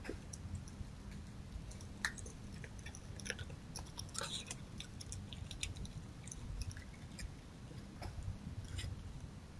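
Red fox eating food from a dish, with irregular crunching and clicking of chewing over a faint steady low hum.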